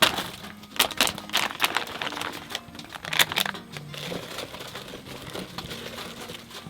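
Soft background music with plastic packaging crinkling and a few sharp clicks and knocks from food being unpacked, clustered in the first second and a half and again about three seconds in.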